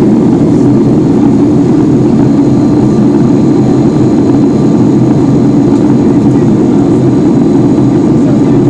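Steady jet engine and airflow noise inside the cabin of a Boeing 757-200 as it climbs after takeoff, loud and deep with no change in pitch.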